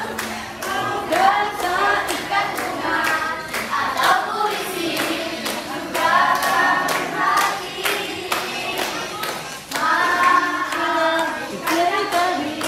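A group of people singing a birthday song together, clapping along in a steady beat of about two claps a second.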